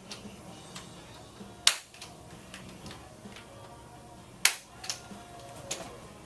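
Handheld Activator 5 chiropractic adjusting instrument firing twice, about three seconds apart, each a sharp click as it delivers an adjusting thrust, with fainter ticks between.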